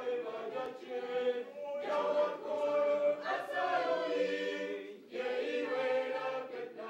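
A choir singing held notes in phrases, a new phrase starting about two, three and five seconds in.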